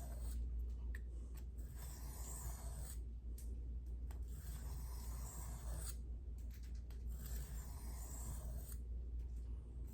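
A knife blade stroked across a sharpening stone: a run of rasping strokes, each one to three seconds long, with short pauses between them. A steady low hum runs underneath.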